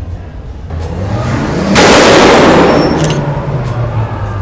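A car engine running with a low note, then revved hard about two seconds in: a loud exhaust roar that holds for about two seconds and drops back, echoing in a concrete parking garage.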